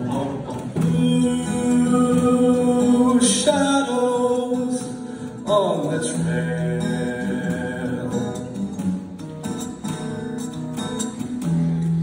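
Vocal group singing in close harmony over strummed acoustic guitar, mostly long held notes, with a downward vocal swoop about five and a half seconds in.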